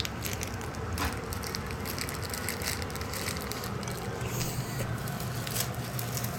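Phone microphone handling noise: scattered small clicks, crackles and rustles over a steady low hum.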